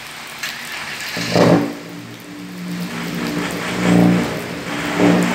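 Volkswagen Crafter van's engine heard through its remote-controlled exhaust, giving a deep steady exhaust note that swells loudly three times, about a second and a half in, near four seconds and near the end.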